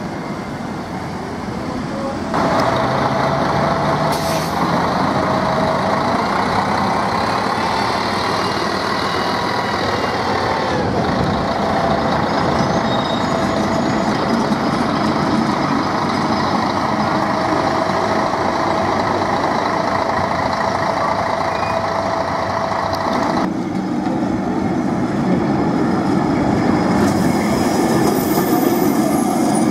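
Lisbon heritage electric trams running past on street track, amid city traffic, with a steady hum through most of it. The sound changes abruptly twice, about two seconds in and again near the end.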